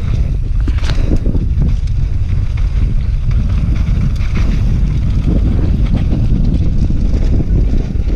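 Wind buffeting a rider-mounted action camera's microphone as a mountain bike descends a dirt singletrack at speed, a steady loud rumble with scattered knocks and rattles from the bike over bumps.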